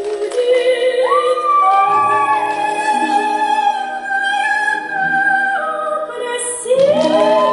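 Music with a singing voice holding long wordless notes, sliding up into them about a second in and again near the end.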